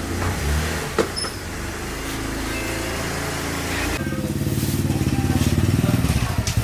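An engine running, growing louder about four seconds in with a fast, even pulsing.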